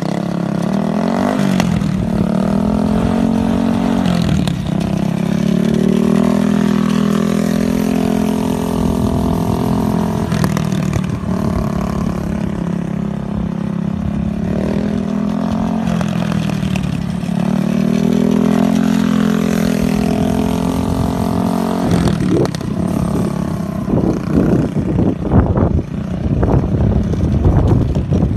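Go-kart engine running at a steady, high speed as the kart laps a circle on a wet skid pad, with brief dips in pitch every few seconds. About three-quarters of the way through, the engine note turns uneven and choppy.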